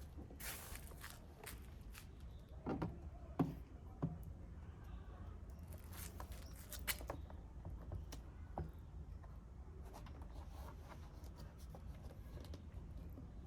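Faint, scattered clicks and knocks of a plastic car door panel being handled and pressed back onto the door over foam lining, with a few sharper knocks about three to four seconds in.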